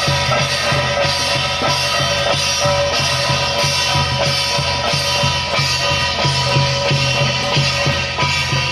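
Music with drums: a regular drum beat under several held instrument tones.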